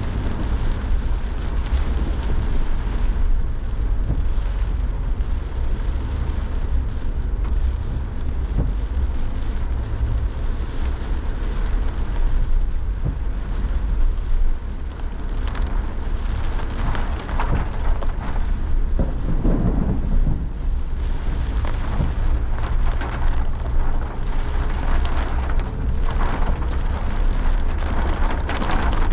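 Heavy rain pouring down in wind, a steady hiss of rain over a constant low rumble, with a brief swell a little past the middle.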